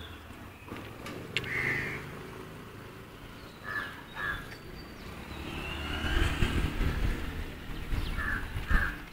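Crows cawing several times, some calls in quick pairs, over low rustling and handling noise that grows in the second half.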